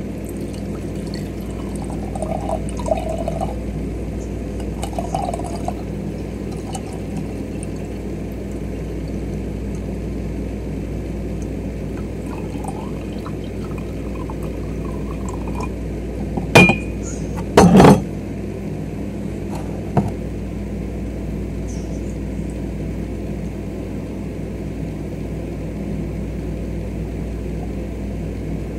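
Pickle juice poured from a glass pickle jar into a glass mason-jar mug, liquid trickling and glugging in. A little past halfway come two sharp clinks of glass, the loudest sounds, and a smaller one soon after.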